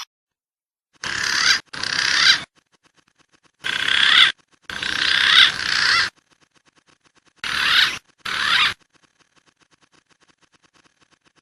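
Bird-lure recording of wild bird calls: six short bursts of high, wavering whistled calls, each starting and stopping abruptly as if cut, with dead silence in between.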